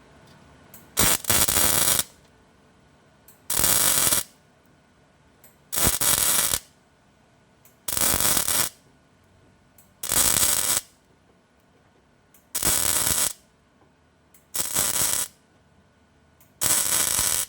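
A welder laying short tack welds on steel body-panel flanges: eight crackling bursts, each under a second, about two seconds apart.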